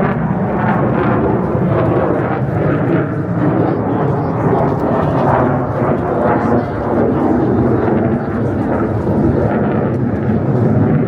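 Loud jet aircraft engine rumble, a continuous roar that swells and eases slightly.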